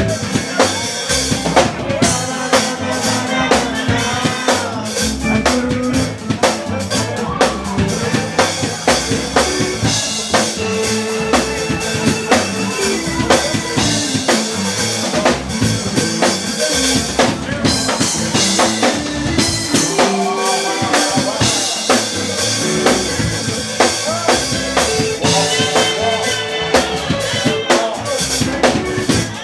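Live soul band playing, with a drum kit keeping a steady beat of kick, snare and rimshots under bass and melodic parts.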